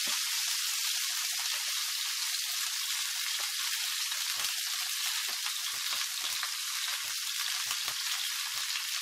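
Chicken fillets sizzling in hot olive oil in a frying pan: a steady frying hiss, with scattered small clicks and pops as pieces are lifted out.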